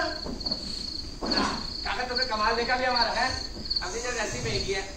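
Cricket chirping played as a theatre sound effect: a steady high chirp repeating about twice a second. People's voices talk over it from about a second in.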